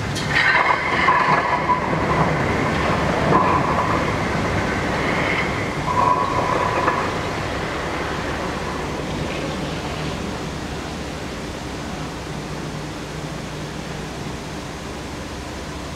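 Ship launch: metallic screeching and rattling from the launching gear as the hull runs off the slipway into the water. High squeals come in several pulses over the first seven seconds, then die away, leaving a steady rushing noise.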